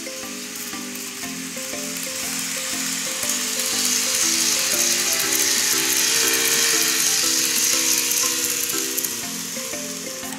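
Background music with a light melody, over the hiss and whir of an N-gauge model train running past on its track; the hiss swells about three seconds in and fades near the end.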